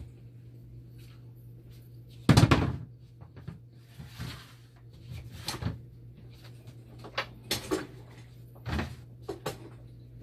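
A plastic milk crate set down on the floor with one loud thump a little over two seconds in, followed by several lighter knocks and clatters. A steady low hum runs underneath.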